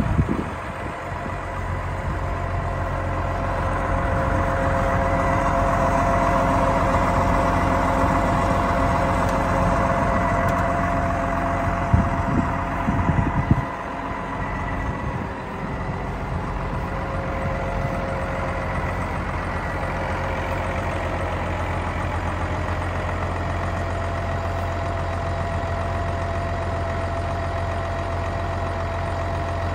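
Case IH 5240 MFWD tractor's six-cylinder turbo-diesel engine running steadily, with a steady whine over its hum. A few brief rumbling bumps hit the microphone about twelve to fourteen seconds in.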